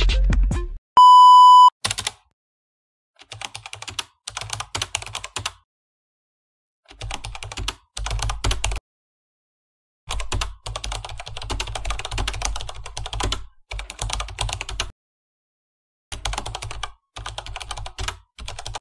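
A single steady beep about a second in, then computer keyboard typing in short bursts of rapid key clicks, with dead silence between the bursts.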